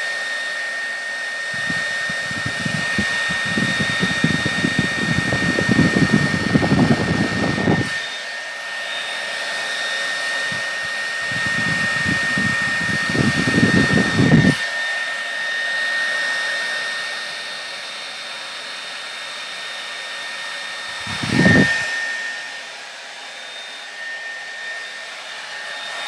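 Conair Infiniti D214SR blow dryer running steadily on hot, a rushing hiss with a thin steady whine, while its comb-toothed nozzle is pulled through thick coily hair. Irregular low rumbling comes and goes twice in the first half and once briefly later on.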